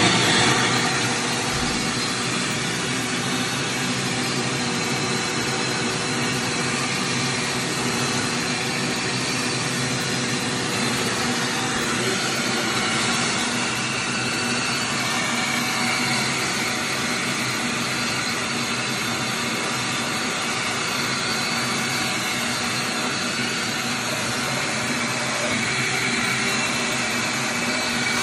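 Wet/dry shop vacuum running steadily on an air conditioner's condensate drain line, sucking water and slime out through a hose fitted to the drain port.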